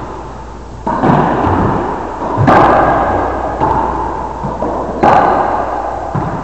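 Racquetball rally: three loud cracks of racquet on ball and ball on wall, about a second in, at two and a half seconds and at five seconds, each ringing on in a long echo around the enclosed court, with a few fainter knocks between.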